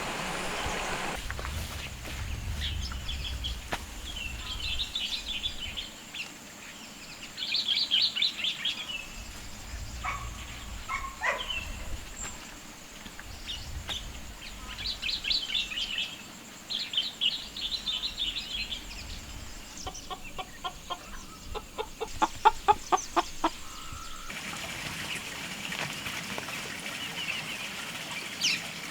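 Chickens clucking on a farm, with short high bird chirps now and then and a quick run of rapid clucks about twenty seconds in.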